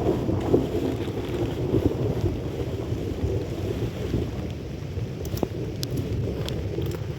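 Rolling thunder in a rainstorm, a deep rumble that slowly dies away, with a few sharp ticks in its second half.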